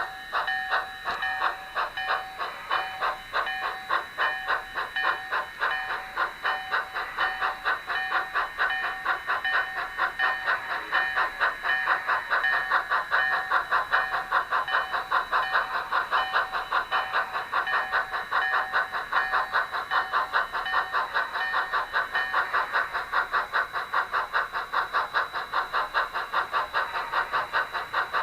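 Model train running on the layout's track: a steady rhythmic clicking over a thin whine, the clicks quickening from about two to about four a second as it picks up speed.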